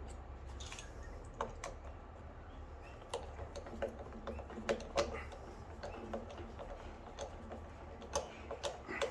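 Irregular light clicks and taps of small metal parts and a screwdriver being handled while the lawn mower carburettor is reassembled and its small screws are fitted.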